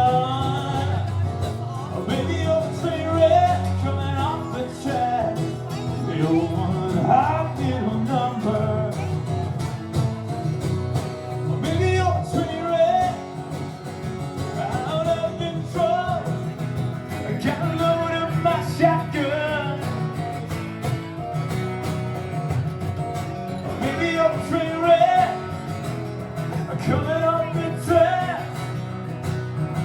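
Live country-rock band playing an instrumental break, with a lead guitar line of bending, sliding notes over a steady beat.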